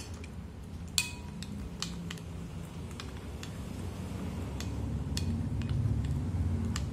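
Metal spoon stirring orange juice with powdered brown sugar in a glass bowl, clinking against the glass now and then; the sharpest clink, about a second in, rings briefly. A low rumble underneath grows louder toward the end.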